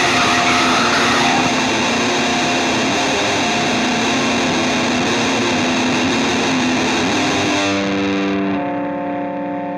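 Rock music with heavily distorted electric guitar. Nearly eight seconds in, the full sound drops away, leaving a few held notes ringing.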